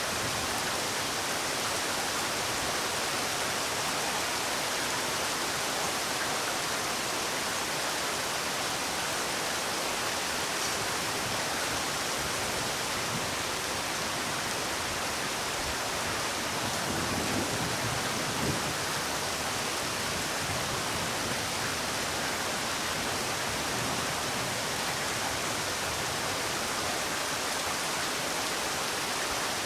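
Steady rain falling, a continuous even hiss that holds the same level throughout. A brief low rumble with a soft thump comes a little past halfway.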